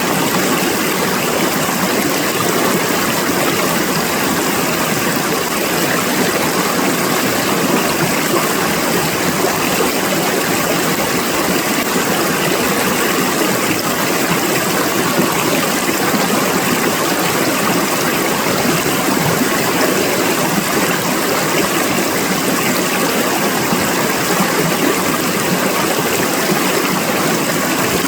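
Small waterfall splashing and running steadily, an even rushing hiss with no change in level.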